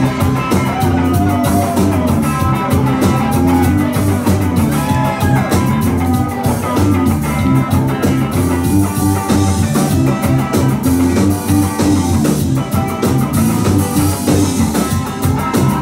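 Live ska band playing an instrumental passage: electric guitar, bass, keyboard and drum kit over a steady, repeating bass line.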